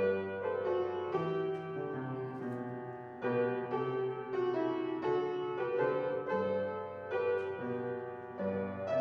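Solo piano playing a slow piece in chords, with new notes struck every half second to a second over a moving bass line.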